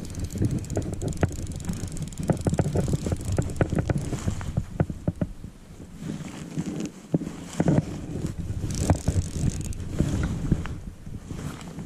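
Danielsson L5W fly reel clicking irregularly as line is wound in and pulled off while a hooked fish is played on a bent rod, over wind and handling rumble on the body-mounted microphone.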